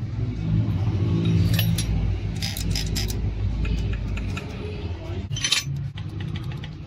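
Small metal parts clinking and tapping now and then as a diesel injection pump is reassembled by hand, over a steady low engine rumble.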